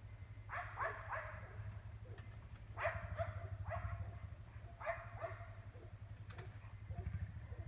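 Dogs barking in quick bursts of two or three barks, several bursts with short pauses between, over a steady low hum.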